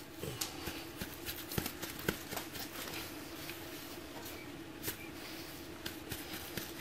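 Stovepipe being worked into a freshly mortared opening in a brick chimney: faint scrapes and small knocks, over a steady low hum.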